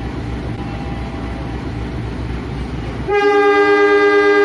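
Train sound effect: the steady rumble of a running locomotive, then about three seconds in a loud two-note locomotive air horn starts and holds.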